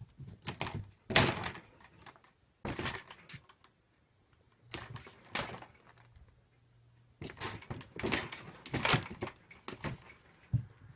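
Square plastic-and-wire shelf-divider panels clattering and knocking as kittens bat and shove them, in four clusters of rattling knocks with short quiet gaps between, the loudest about a second in, and a single dull thump near the end.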